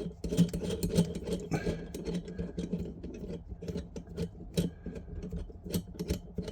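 Irregular small clicks and light knocks of kitchen tap fittings being handled and a piece taken off, over a steady low hum.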